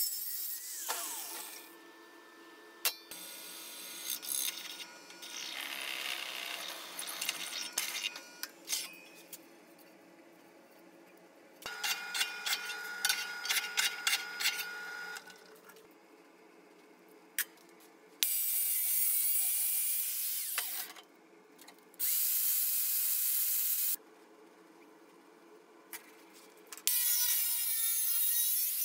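Bosch angle grinder with a cut-off disc cutting sheet steel, starting and stopping in several separate spells with quieter gaps between. In the middle a drill press bores through a steel plate for a few seconds, a steady tone with rapid ticking.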